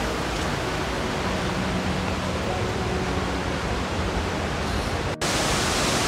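Steady, even rush of water from a waterfall and rocky stream, broken by a momentary dropout a little after five seconds in.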